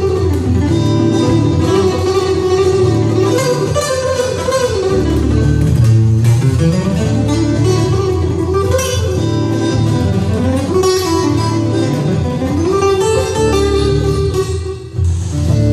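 Cutaway acoustic guitar played fingerstyle: plucked melody notes running up and down over a bass line, with a brief dip in the playing near the end.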